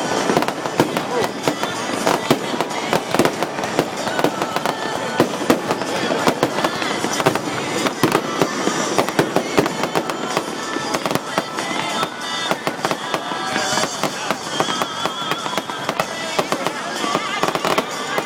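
Aerial fireworks going off in quick succession, a dense run of sharp bangs and crackles with no break.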